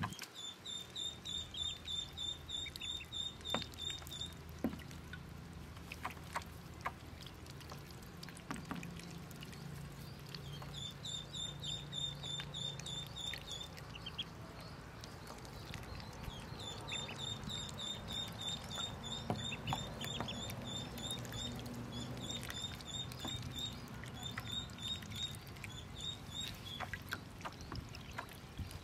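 Newborn Pekin ducklings peeping in rapid runs of high calls lasting a few seconds at a time, with light splashing and paddling in shallow water.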